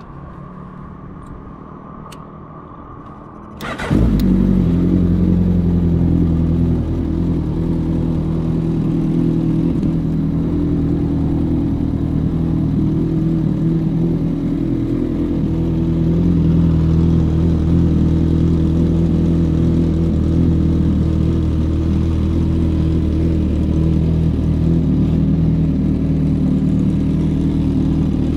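Suzuki Hayabusa inline-four with a Brocks aftermarket exhaust starting up about four seconds in, after a faint steady hum, then idling steadily.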